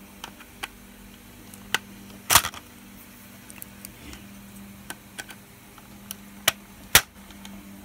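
Small screwdriver clicking and tapping against a screw and the plastic shell of a VHS cassette as the screw is driven in: scattered sharp clicks, the two loudest about two and a half and seven seconds in.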